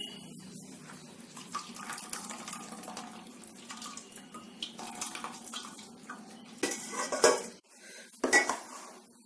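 Metal utensils clinking and scraping against a strainer and pot while boiled grated pumpkin is pressed to drain out its water, with some water running off. Two louder knocks come near the end, and a steady low hum under it all stops shortly before them.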